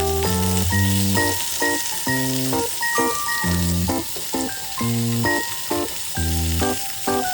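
Tofu sizzling in an oiled frying pan, a steady hiss, under background music with an even beat of bass and melody notes.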